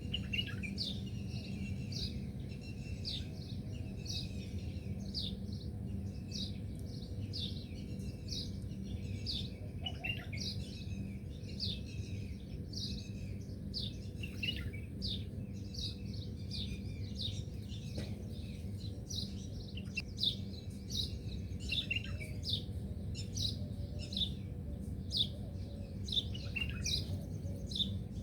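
Small birds chirping: a continuous run of short, high chirps, each dropping quickly in pitch, about two a second, over a steady low background rumble.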